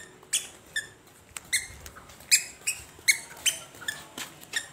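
A child's squeaky sandals squeaking with each step as a toddler walks: a short, high squeak roughly every half second or less.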